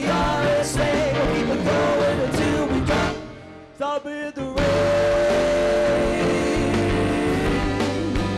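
Live rock band with keyboards, electric guitar, drums and vocals playing a song. About three seconds in the band drops out into a brief break punctuated by a few short hits, then the full band comes back in.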